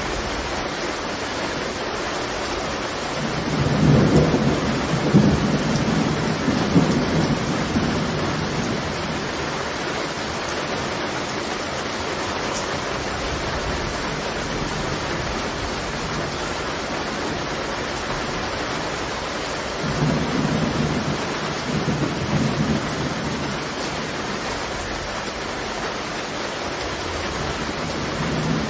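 Heavy rain falling steadily, with rolls of thunder: a long rumble starting about three seconds in, another about two-thirds of the way through, and a third beginning near the end.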